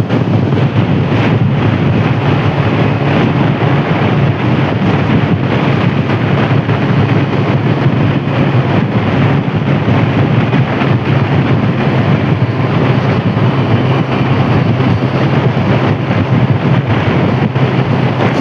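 Steady highway traffic noise, a continuous loud roar of vehicles, with heavy wind buffeting the microphone.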